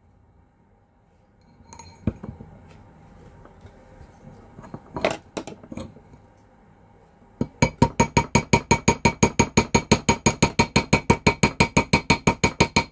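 After a few soft handling clicks, a small cross-peen hammer starts rapid, even light taps on a copper tube rivet set on a steel ring mandrel, about seven strikes a second, each with a metallic ring. The taps are splaying the top of the tubing wider than the hole to form the rivet head.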